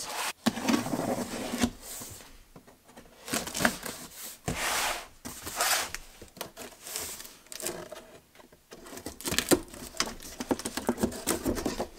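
Cardboard box being opened by hand: a utility knife cutting along the top, then a strip on the flap being peeled up, with cardboard scraping, rustling and clicking in irregular bursts.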